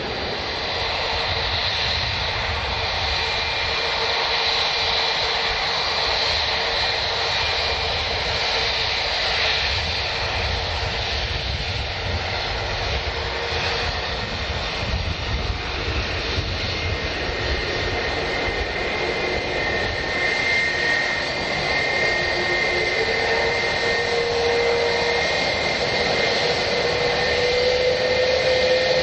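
Jet airliner's turbofan engines running: a continuous rushing rumble with a steady whine over it. The whine slowly rises in pitch over the last several seconds as the sound grows a little louder.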